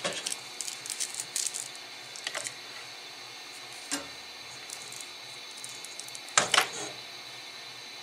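Hardware and parts being handled on a metal rig frame: scattered light clicks and rustles over a steady hiss, a single click about four seconds in, and two sharper knocks in quick succession about six and a half seconds in.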